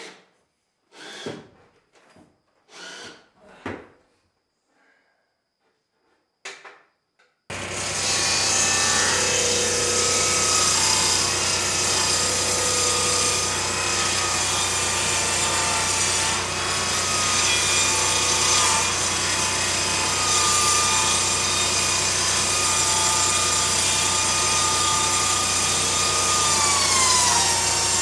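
Tractor-driven circular saw bench running and ripping long boards: a loud, steady machine sound with the tractor engine's low hum beneath and the blade's tone wavering, its pitch dropping near the end. Before it starts, a few short separate sounds.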